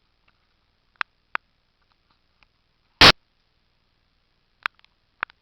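Short sharp clicks, two about a second in and two more near the end, with one louder brief knock about three seconds in.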